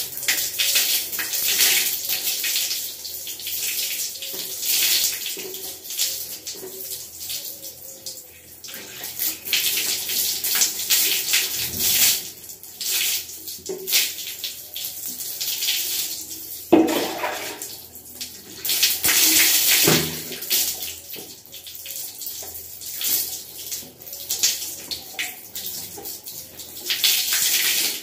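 Water poured from a plastic mug over long hair, splashing and streaming down onto the floor, loud and irregular, swelling and easing off again and again.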